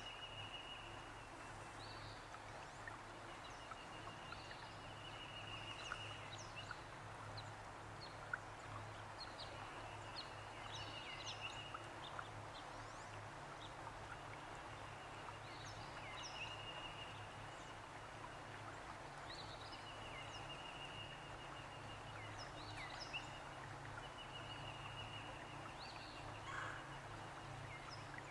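A songbird's high, even trill, about a second long, repeated every few seconds, with short chirps from other birds, over a steady wash of low noise from wind and water.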